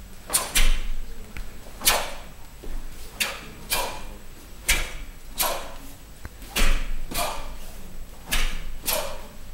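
Sharp cracks of cotton Taekwon-Do uniforms snapping as two black belts punch, block and kick through a pattern, about a dozen strikes at an uneven pace of roughly one a second.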